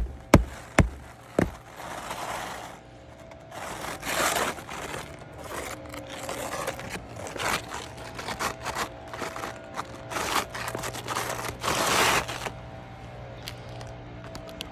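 Repair work on a damaged roof shingle: irregular scraping and rustling strokes, with a few sharp knocks in the first second or so.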